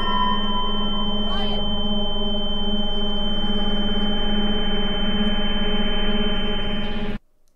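Film sound design: a loud, steady, high-pitched ringing tone held over a sustained low drone and chord. It cuts off abruptly about seven seconds in.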